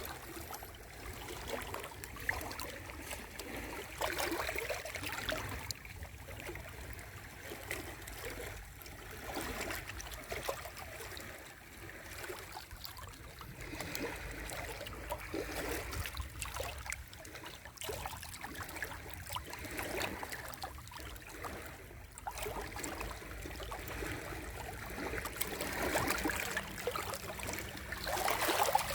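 Small sea waves breaking and washing up the shore, the wash swelling and easing off every few seconds.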